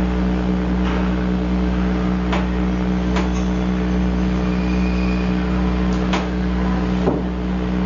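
Steady low hum of several fixed tones under a constant hiss, with a few faint clicks scattered through it.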